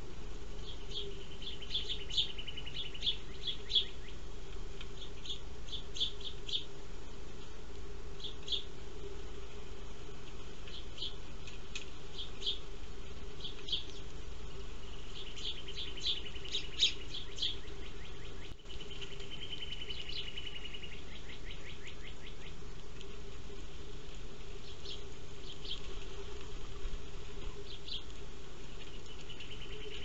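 House sparrows chirping: short chirps in quick clusters every second or two, with a few longer buzzy trills around the middle, over a steady low hum.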